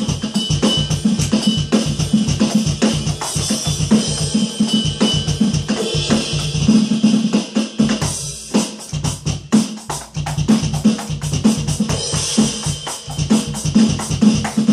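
Roland V-Drums electronic drum kit being played: a steady drum beat with cymbals, with a brief break a little past the halfway point before the beat picks up again.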